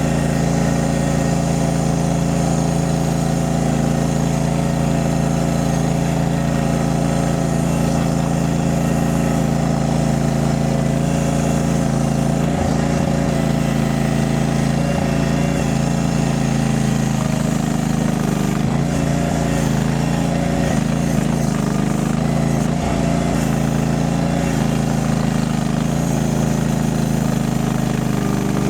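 Mini skid steer's small engine running steadily, with a slight shift in pitch a little past halfway through.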